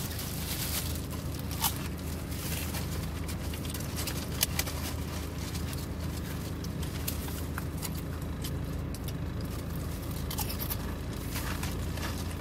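Steady low hum inside a car's cabin, with scattered small clicks and crinkles from a paper sandwich wrapper and chewing.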